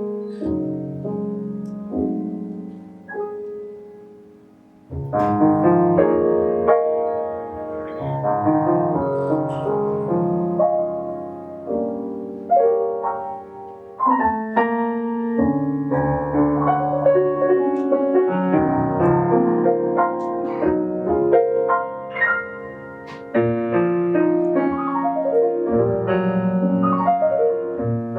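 Piano playing a jazz passage of chords and runs. It fades away about four seconds in and starts again a second later.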